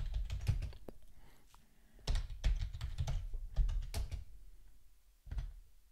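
Keystrokes on a computer keyboard: a quick run of typing, a short pause, then a second run, and a single keystroke near the end.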